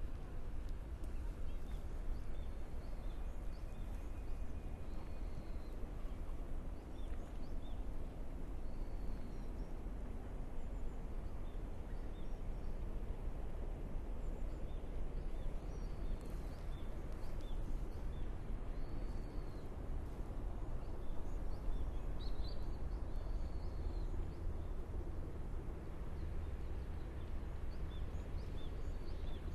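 Forest park ambience: small wild birds give short, scattered high chirps over a steady low background rumble.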